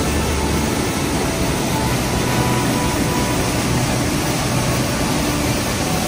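Mountain creek whitewater rushing steadily through a narrow rocky chute.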